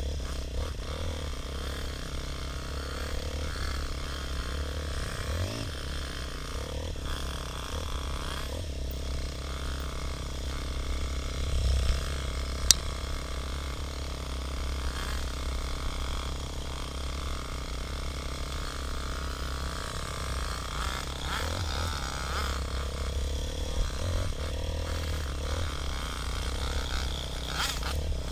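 Dirt bike engine running along a trail, muffled under a steady low rumble of wind on the bike-mounted camera's microphone, with a sharp click about halfway through.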